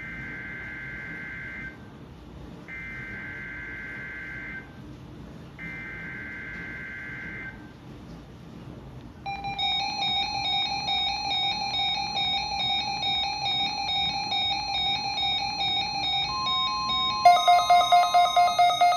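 Emergency Alert System test signal: three bursts of SAME header data, each an electronic data warble about two seconds long with short gaps between them. About nine seconds in, a steady electronic attention tone starts. Near the end it shifts pitch and turns into a louder pulsing alarm tone, about two pulses a second.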